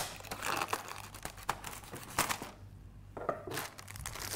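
Meal-kit packaging crinkling and rustling in irregular bursts as it is handled and opened, with a sharp click right at the start.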